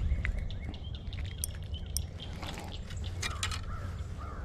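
Small birds chirping over a steady low rumble, with a few short sharp clicks.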